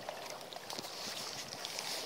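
Small seawater waves lapping and splashing steadily, with scattered faint ticks.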